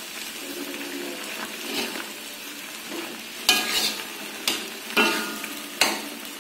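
Ground spice paste with pandan leaves sizzling in an aluminium wok, being sautéed before the chicken goes in, while a long metal spatula stirs and scrapes through it. In the second half the spatula strikes the wok about four times with sharp, ringing metal clinks.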